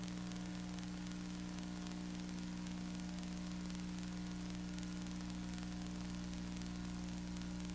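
Steady hiss with a low electrical hum: the background noise of the recording, with no other sound in it.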